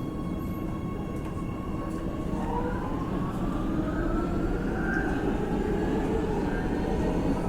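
Electric train pulling away: a steady low rumble that grows slowly louder, with the motors' whine rising in pitch from about two seconds in.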